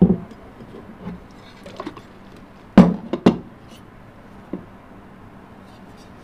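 A plate and a plastic ring mould being flipped over and set down on a table to turn out a set pudding: a knock at the start, a few light clicks, then two loud knocks about half a second apart nearly three seconds in, and a faint tap later.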